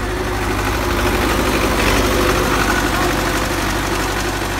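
An engine idling steadily, giving a low, even hum.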